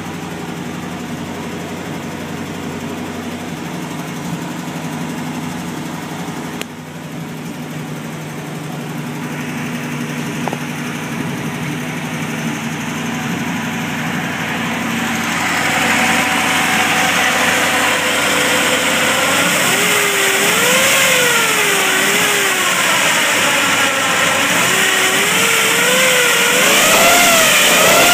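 International 1100C pickup's 304 V8 idling steadily, then growing louder about halfway through as its engine speed rises and falls smoothly a few times.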